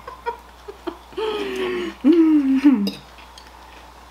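A woman's voice making two drawn-out wordless sounds, like humming or hooting, the second sliding in pitch, with a few faint clicks of a fork on a plate before them.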